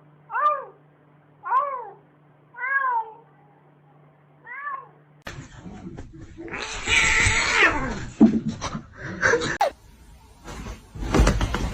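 A domestic cat meowing four times, each call rising and then falling in pitch. About five seconds in, a louder, noisier stretch of sound begins, with gliding cries and knocks.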